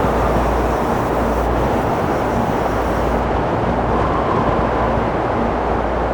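Strong wind rushing steadily, with gusts buffeting the microphone in a deep rumble that comes and goes.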